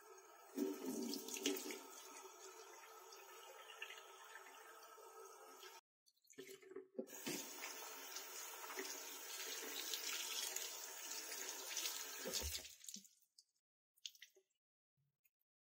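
Tap water running into a washbasin and splashing over gloved hands as they are rubbed together under the stream. The sound breaks off briefly about six seconds in, resumes, and stops abruptly about thirteen seconds in, followed by a few drips.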